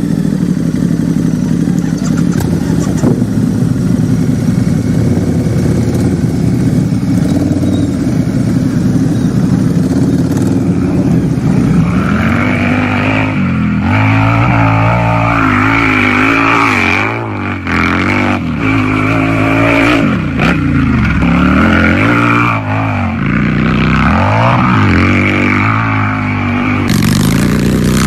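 Harley-Davidson motorcycle's V-twin engine idling steadily, then from a little before halfway revved up and down over and over, the pitch rising and falling with each blip of the throttle.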